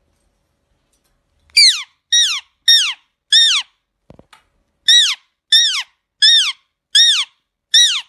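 Indian ringneck parakeet screeching: nine harsh calls, each sliding down in pitch, in a run of four and then, after a short pause, a run of five.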